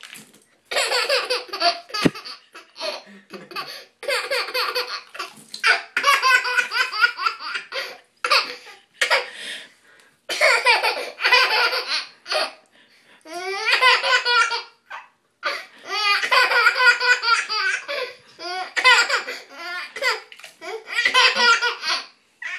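Baby laughing hard, cracking up in repeated high-pitched bursts of a second or two, with short pauses for breath between.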